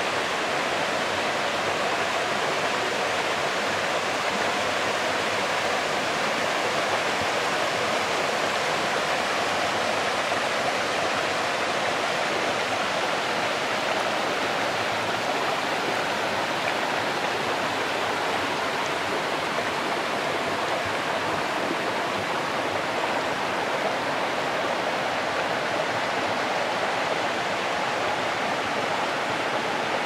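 Steady rush of water from a small waterfall and the rocky stream below it, splashing over stones without change.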